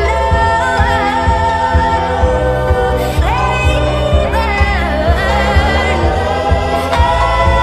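Sped-up pop song: a sung vocal line with sliding notes over a pulsing bass.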